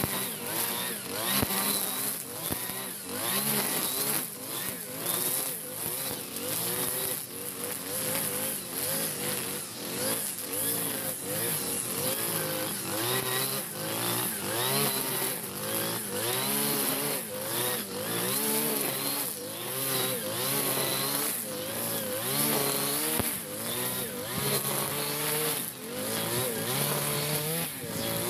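Backpack brush cutter's small petrol engine running under load, its pitch rising and falling over and over as the cutting head swings through grass. The machine is freshly serviced and running at full power.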